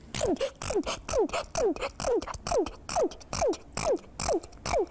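A girl sneezing over and over in a rapid fit she cannot stop, about two or three short sneezes a second. Each is a sharp burst of breath with a quick voiced sound that falls in pitch.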